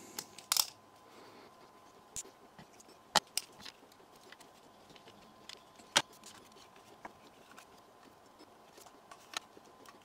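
Scattered sharp clicks and small metallic taps of a ratcheting screwdriver and small drive mounting screws being handled, with the loudest tap about six seconds in. A faint steady tone runs underneath.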